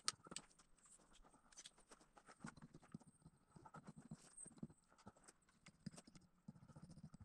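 Faint, irregular knocks and clicks as tent stakes are driven into gravel ground, the sharpest knock right at the start.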